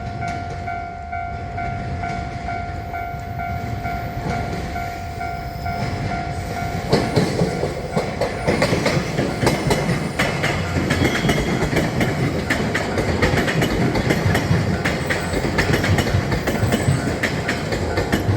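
Railroad crossing warning bell ringing in a quick, even repeat. About seven seconds in, a train passes over the crossing, its wheels clacking over the rail joints with a rising rumble, while the bell keeps ringing underneath.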